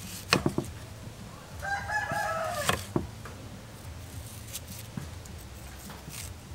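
A rooster crows once, starting about a second and a half in and lasting about a second. Around it come a few sharp clicks of a kitchen knife cutting an onion against a wooden chopping board, the loudest just after the start.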